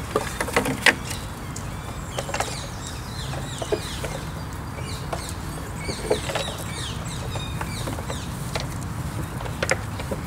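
Red deer stags working their antlers against the branches of a fallen tree: irregular knocks, cracks and scrapes of antler on wood. Short high chirping calls come in the middle.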